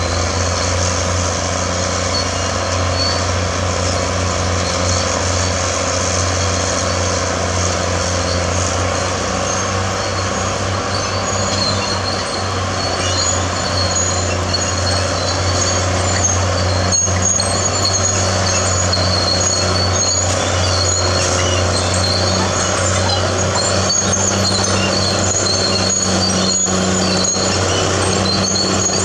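Caterpillar D6R bulldozer's diesel engine running steadily under way, with a deep constant hum. From about halfway in, a high-pitched squeaking comes and goes over it.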